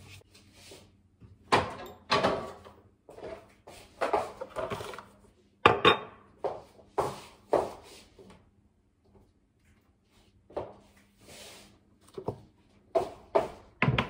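Food containers and packages being taken out of a refrigerator and set down: a series of knocks, clatters and rustles, with a quiet pause a little past halfway.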